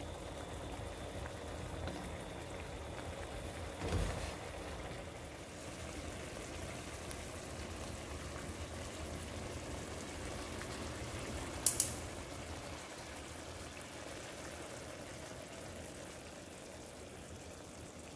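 Pan of fish fillets and vegetables simmering in broth, giving a steady soft bubbling hiss. A dull knock comes about four seconds in, and two sharp clicks come about two-thirds of the way through.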